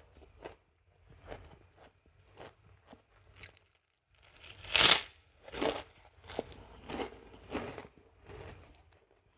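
Close-miked eating: soft chewing and mouth sounds, then a loud crunch about five seconds in as a fried kerupuk cracker is bitten, followed by about five crunchy chews.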